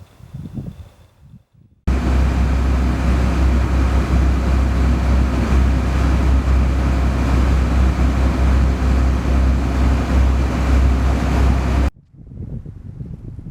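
Loud, steady, deep rumble with a hiss over it, starting abruptly about two seconds in and cutting off abruptly near the end.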